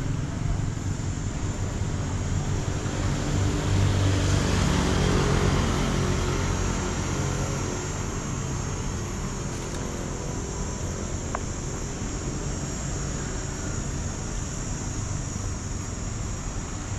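Street traffic ambience: a steady low engine rumble, swelling as a vehicle passes about four to five seconds in, then settling back.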